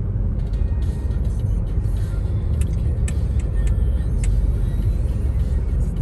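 Steady low road and engine rumble inside a car cruising on an expressway, with a few sharp clicks in the middle. Music plays faintly underneath.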